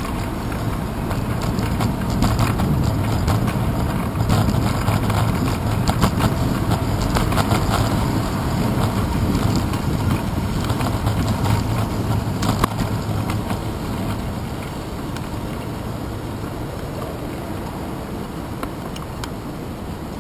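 Wind and road noise picked up by a handlebar-mounted GoPro Hero 2 on a moving bicycle, with scattered knocks and rattles from bumps in the rough pavement. The noise eases off about two-thirds of the way through as the bike slows.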